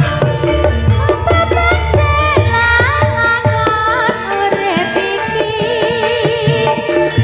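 Live jaranan sentherewe ensemble music: hand drums (kendang) keep a steady beat under a bending, wavering melodic lead.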